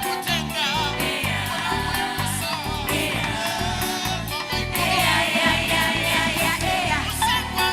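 Live gospel band playing with singing: vocals over guitar, keyboard and drums with a steady beat.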